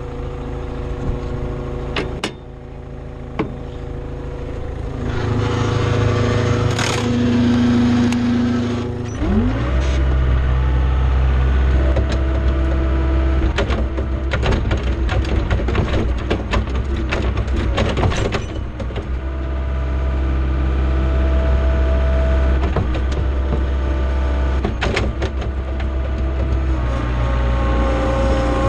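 John Deere skid steer's diesel engine running, revving up about nine seconds in and then holding a steady, heavier drone, with metal clanks and rattles from the machine.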